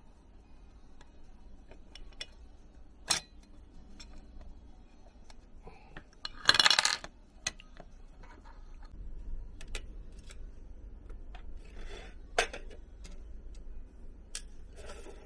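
Small plastic and metal parts clicking as they are handled and fitted together, with a short metallic clatter about six and a half seconds in as a part lands in a stainless steel tray, and sharp clicks near three and twelve seconds.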